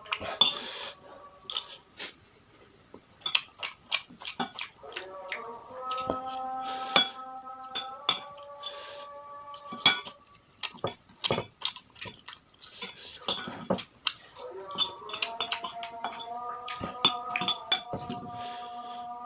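Spoon or fork clinking and scraping against a bowl over and over while eating, in sharp separate knocks.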